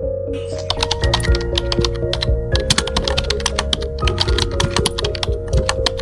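Fast, uneven clicking, many clicks a second, over background music with steady held notes.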